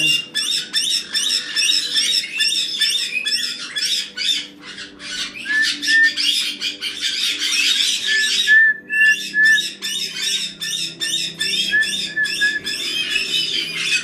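Several caique parrots calling together: a dense, continuous run of short, shrill squawks and chirps, several a second, with a short repeated whistled note joining in from about five seconds in.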